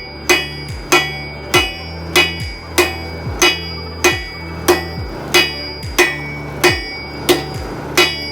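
A 4.5-pound straight peen hammer striking a steel bar on the anvil's horn at a steady pace: about thirteen blows, roughly three every two seconds, each with a short metallic ring. This is the bar being drawn out for length.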